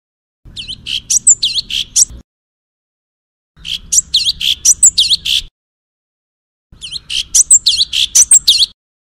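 Recorded songbird song: a two-second phrase of rapid high chirps and swooping whistles, played three times with clean silent gaps of about a second and a half between. It is a looped masteran track for training cage birds to copy the song.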